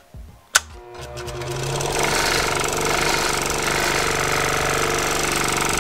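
Porter-Cable scroll saw switched on with a click about half a second in, its motor coming up to speed over about a second and then running steadily as the blade strokes up and down. It is a test run on a freshly fitted blade with loose tension, and the saw is vibrating a lot, which for this saw is good.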